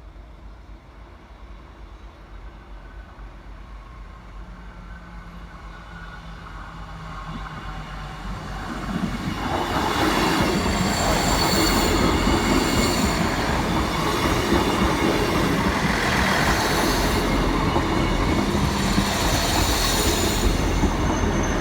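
South Western Railway diesel multiple unit, made up of Class 158 and Class 159 units, approaching at speed and growing louder for about nine seconds, then passing close by the level crossing with loud wheel-and-rail rumble and rushing for the rest.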